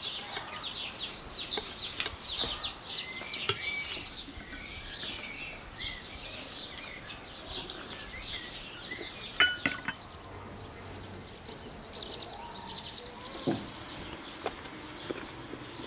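Small birds chirping continuously, with a few sharp clinks of dishes and cutlery, one of them ringing briefly a little past halfway.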